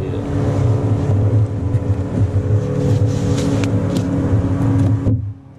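A motorboat engine runs steadily with a low drone, mixed with a few light clicks and knocks. It cuts away sharply near the end.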